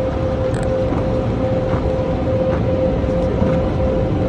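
Car wash air dryer blowers running: a steady, loud rush of air with a constant tone through it, heard from inside the car.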